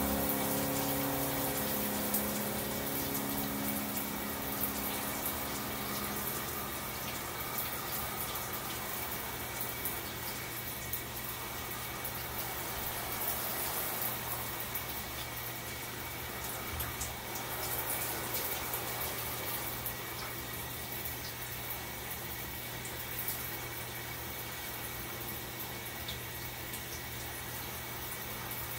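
Shower water running with a steady hiss in a small tiled shower stall.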